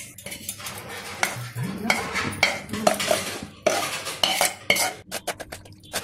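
Metal spoon scraping thick pickle gravy out of a pan and clinking against a steel wire-mesh strainer as the mixture is pushed into it to strain out the juice. It is a run of scrapes and clinks, quickest near the end.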